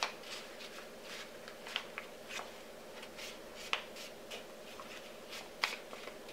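A sheet of paper rustling and crinkling as it is folded by hand into an origami boat, with a few sharper crackles about two seconds apart.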